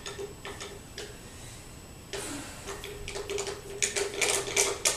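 A series of light, sharp clicks and ticks, sparse at first, then coming thick and louder from about two seconds in.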